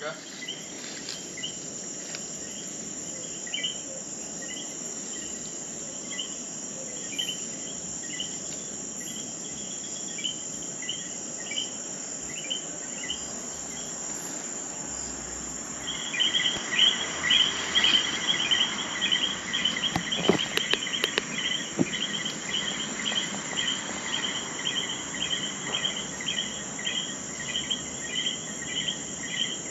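Night chorus of calling insects: a steady high cricket trill with rapid, repeated chirping calls layered over it, which become much louder a little past halfway. A few brief clicks sound about two-thirds of the way through.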